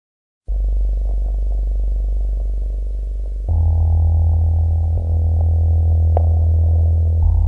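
Deep synthesizer drone from the soundtrack, starting about half a second in. It thickens and grows louder about three and a half seconds in, with one brief high ping near the end.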